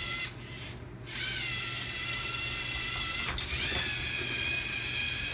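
LEGO Mindstorms EV3 robot's motors and gear trains whining as it drives. The high, steady whine stops briefly near the start and again about three seconds in, then picks up again each time.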